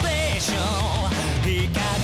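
Hard rock music: a band with drums, bass and electric guitar, with a lead melody that bends and wavers in pitch over it.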